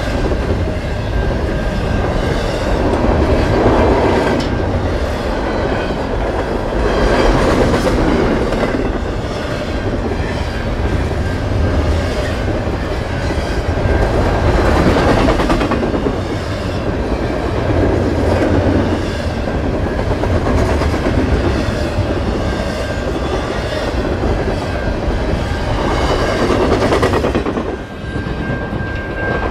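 Double-stack intermodal container train passing close by: a steady rumble and clatter of steel wheels on rail that swells and eases every few seconds. The sound drops off suddenly near the end as the last car goes by.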